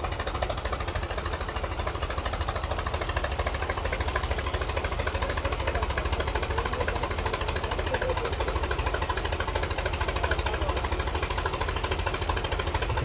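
Diesel tractor engines labouring at full load in a tug-of-war pull, a dense, steady, fast knocking run with no let-up.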